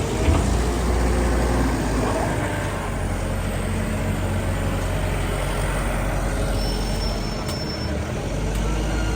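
A vehicle engine running steadily with a constant low drone. A brief thin high tone sounds about seven seconds in.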